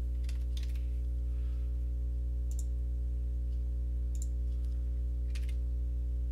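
A handful of computer mouse clicks, about five spread across a few seconds, over a steady low electrical hum.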